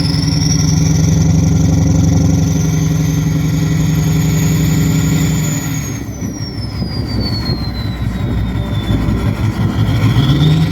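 Straight-piped Ford 6.0 Powerstroke turbo V8 diesel revved and held, with a turbo whistle that climbs and holds. About halfway through it falls back as the revs drop toward idle, then it starts climbing again near the end. The engine runs on injectors the owner calls bad.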